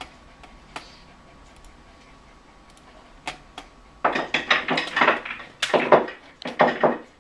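A few faint clicks, then from about four seconds in a rapid, irregular clatter of hard knocks and rattles.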